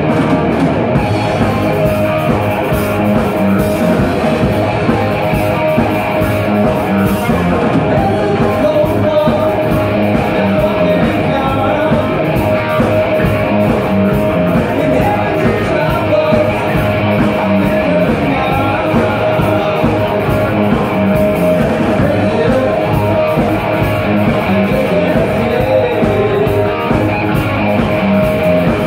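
Live rock band playing loudly: distorted electric guitar through a Randall amplifier, bass guitar, drum kit and a lead singer.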